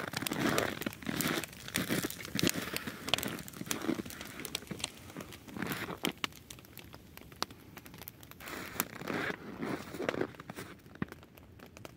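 Burning pile of logs and brush crackling, with irregular sharp pops and snaps; louder in the first few seconds, then sparser and quieter.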